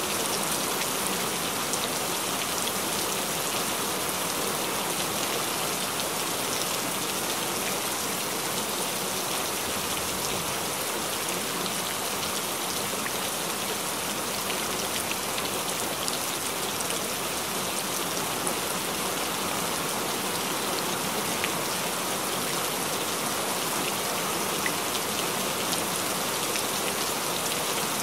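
Steady rain falling, with a fine patter of individual drops.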